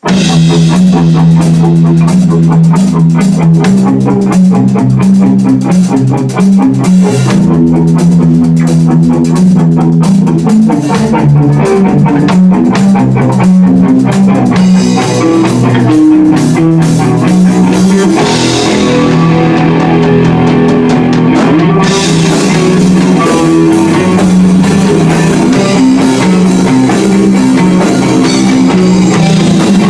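Rock band playing an instrumental intro: electric guitar, bass guitar and drum kit, loud and steady, with no singing.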